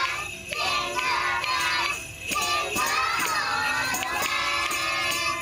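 A group of young children singing a song together while shaking jingle bells.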